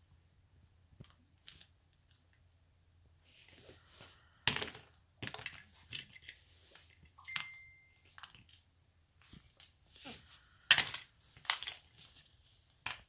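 Small plastic toy figures being handled and knocked against each other and the floor mat: scattered clicks and clatters, with one brief steady high tone about seven seconds in.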